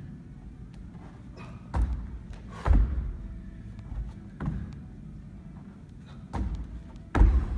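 Feet and hands thudding on a wooden sports-hall floor during press-up burpees: five dull landings one to two seconds apart, the loudest about a third of the way in and near the end.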